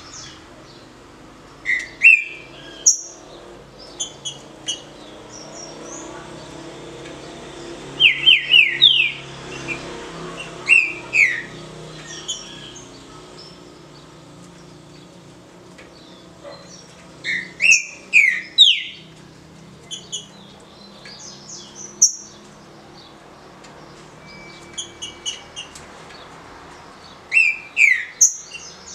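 Green-winged saltator (trinca-ferro) singing its short 'de roda' song: loud, clear whistled phrases of a few quick falling notes, repeated about five times with pauses of several seconds between, and soft single notes in the gaps.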